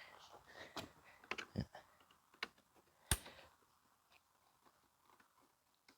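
Scattered clicks and light knocks of a screwdriver, screws and plastic vacuum housing parts being handled during disassembly. The loudest knock comes about three seconds in, and the sounds thin out after that.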